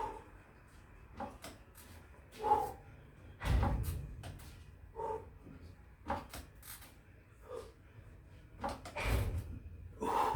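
Scattered knocks and clicks with short creaks, and two heavier thuds about three and a half seconds and nine seconds in.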